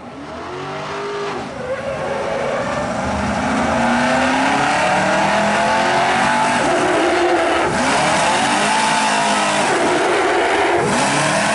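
Engine of an old open-cab fire truck revving hard as it races down the drill track. Its pitch sweeps up and down at the start and again near the end, and it runs loud and steady in between.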